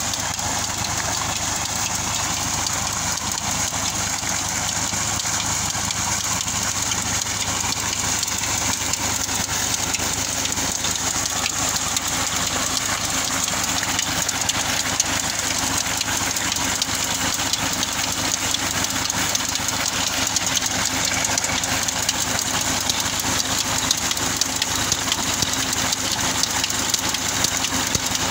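Tractor's diesel engine running steadily at a constant speed, turning a tubewell pump through its PTO shaft and flywheel, with water pouring from the pump's outlet pipe.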